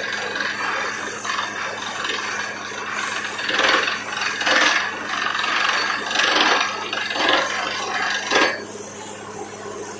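Borewell drilling rig running with a steady hum, and a run of about five loud, harsh bursts of scraping noise from about three and a half to eight and a half seconds in.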